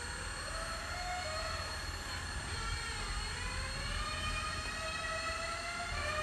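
Hydraulic pump and electric motors of a radio-controlled excavator whining as it slews its upper body and raises its boom, the pitch rising and falling with the load.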